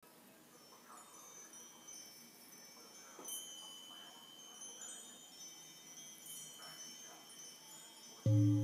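Chimes ringing softly, several high tones struck now and then and left to ring on. Just before the end a loud, deep, steady tone sets in and holds.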